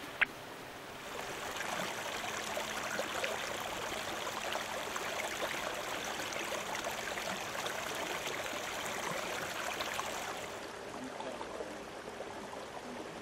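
River water flowing: a steady rush that grows louder about a second in and eases near the end, with a short click right at the start.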